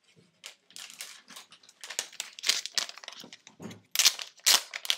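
Plastic packaging of a pack of AA batteries crinkling and crackling as it is handled. The crackles are sparse at first, come thicker about two seconds in, and are loudest near the end.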